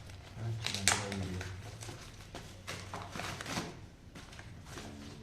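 Cardboard packing being handled as a monitor is pulled out of its box: a sharp knock about a second in, then scattered taps and rustles a couple of seconds later.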